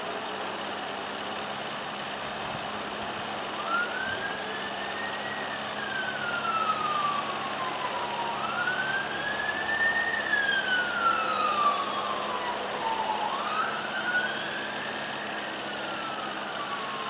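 A siren wailing in three slow sweeps, each rising quickly and then falling away gradually, louder in the middle, over the steady sound of an engine idling.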